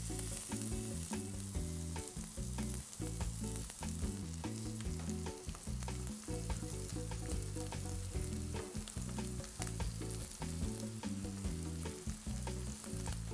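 White and green cauliflower florets sizzling in hot oil in a nonstick frying pan, with a steady hiss and scattered crackles, as they roast to a golden crust.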